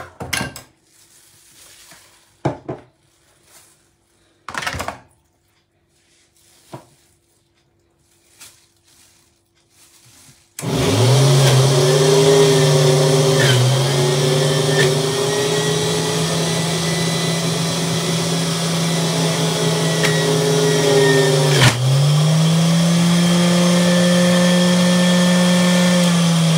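A few light knocks and clicks, then about ten seconds in a centrifugal juicer's electric motor starts suddenly and runs loud and steady with a humming whine. Its pitch dips twice, the second time with a click, and climbs back up each time.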